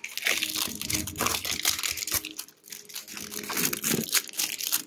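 Clear plastic wrap being peeled and crinkled off an L.O.L. Surprise toy ball by hand: irregular crackling and rustling with many small snaps.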